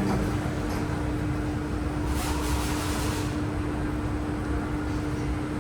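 Inside a Kawasaki–CRRC CT251 metro car standing at a platform with its doors open: a steady hum holding one constant tone over a low rumble. A soft hiss rises for about a second, roughly two seconds in.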